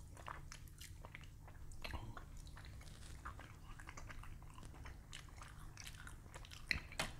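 Faint mouth sounds of people chewing food: soft wet clicks and smacks, with a couple of sharper clicks near the end, over a low steady hum.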